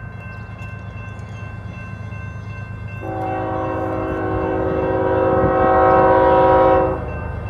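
Union Pacific diesel locomotive's multi-note air horn sounding one long chord of about four seconds, growing louder and then cutting off sharply, over the low rumble of the passing train.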